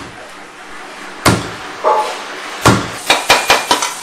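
A series of sharp knocks: single hard knocks about a second apart, a brief ringing clink in between, then a quick run of about five knocks near the end.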